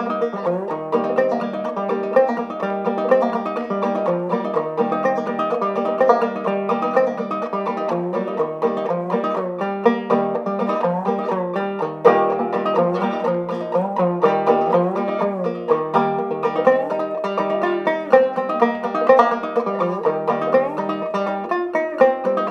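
Handmade gourd banjo with a goatskin head and beech neck, played as a steady, rhythmic instrumental tune of quickly plucked notes over a repeated low drone.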